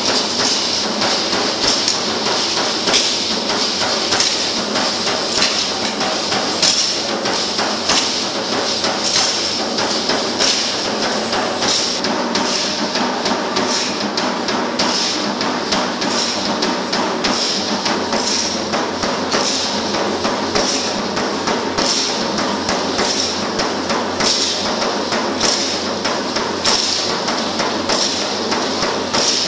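Matachines dancers shaking hand rattles and stamping their feet in a steady rhythm on a hard floor: a continuous dry rattling over many sharp, repeated footfalls.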